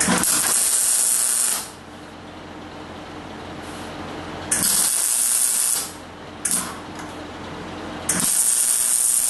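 Wire-feed (MIG) welder arc crackling in short tack-weld bursts on sheet steel: one of about a second and a half, one of just over a second, a brief blip, and another starting near the end.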